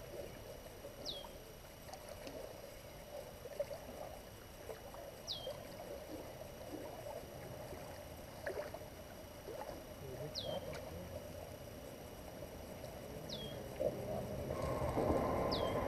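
River water sloshing and lapping around a wading angler, getting louder near the end as a hooked catfish is brought in and splashes. A bird gives a short downward-sliding whistle five times.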